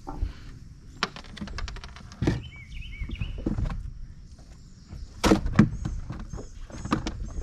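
Fishing gear being handled in a small boat: a run of clicks and several louder knocks against the boat, with small birds chirping in the background.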